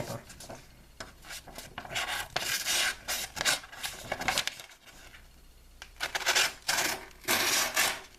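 The small, unsharpened knife blade of a pocket multi-tool cutting through a sheet of paper: scraping and rustling paper, in two main stretches about two seconds in and again about six seconds in.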